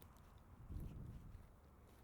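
Footsteps on soft ground while walking, with one dull low thump a little under a second in and a few faint clicks.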